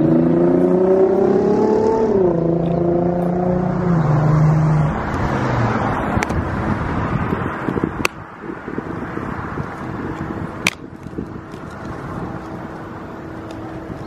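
A motor vehicle's engine accelerating, its pitch rising, dropping sharply about two seconds in as at a gear change, then pulling at a lower pitch before settling into a steady road-noise hum. A few sharp clicks come in the second half.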